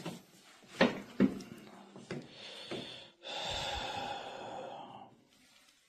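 Keyboards and other objects being moved about and set down on a desk: a few separate knocks, then a steady hiss of about two seconds.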